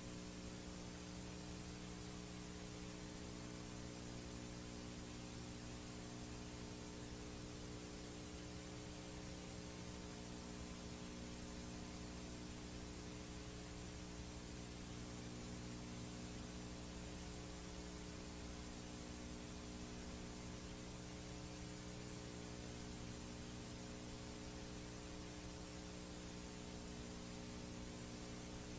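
Faint, steady hiss and mains hum with its overtones from a blank stretch of VHS tape being played back.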